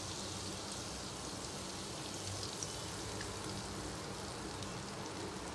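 Butter sizzling steadily as it melts in a hot nonstick frying pan.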